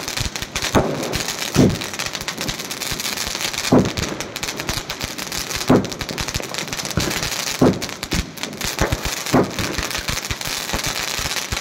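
Multi-shot skyshot fireworks cake firing: a dense, continuous crackle from gold crackling effects, with a louder bang every second or two as further shots launch and break.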